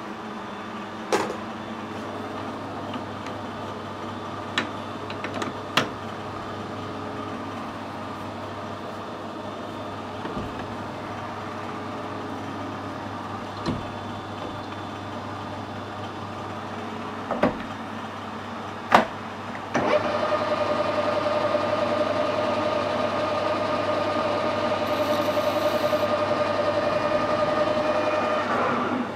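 Metal lathe: a few sharp knocks and clicks over a steady low hum while the chuck is stopped, then about twenty seconds in the spindle starts and runs with a steady whine, stopping right at the end.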